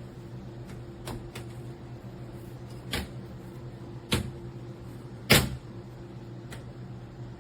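A handful of sharp knocks and clacks, the loudest about five seconds in, over a steady low hum.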